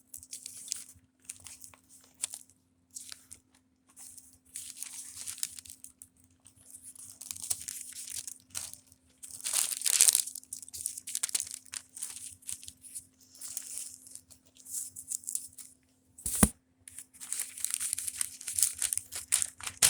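Thin Bible pages being leafed through, a run of irregular papery swishes and rustles, with a brief knock near the end. A faint steady hum runs underneath.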